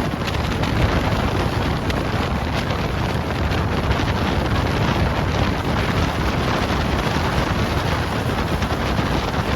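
Wind blowing hard across the microphone: a steady, loud rushing noise with no let-up.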